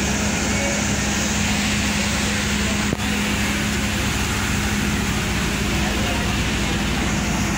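Steady engine hum from a standing train, with a low drone. Voices sound in the background, and the sound breaks off for an instant about three seconds in.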